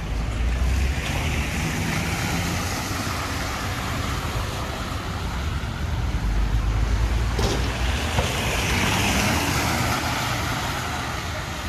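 Car traffic on a rain-wet street: tyres hissing on the wet road over a low engine rumble. The hiss swells as a car comes up and passes close in the second half.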